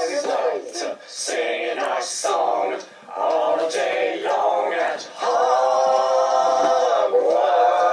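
Voices singing a cappella, layered like a small choir, in a few short phrases and then one long held note over the last three seconds or so.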